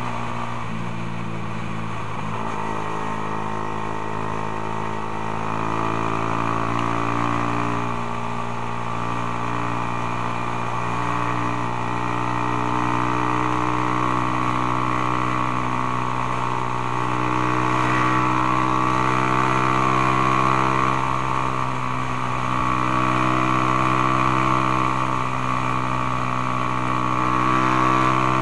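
Suzuki Belang R150 (Raider R150) single-cylinder four-stroke engine running at a steady cruise, heard on board from the rider's chest. The engine note rises and eases a little several times with the throttle. Low wind rumble sits on the microphone.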